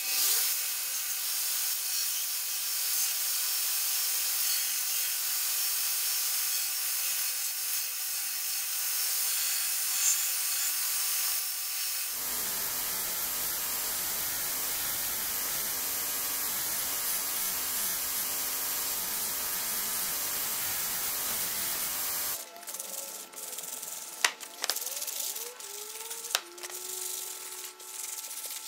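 Ameribrade belt grinder running with a wooden handle piece pressed against its sanding belt; about halfway through the grinding noise turns fuller and lower. Near the end the grinder stops and hand sanding takes over: irregular rubbing strokes with sharp clicks.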